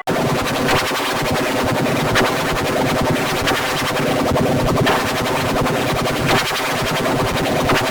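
Church-bell recording mangled by heavy digital audio effects: a loud, harsh, distorted wash of noise with faint traces of the bell's pitch. Brighter strokes come about every second and a half.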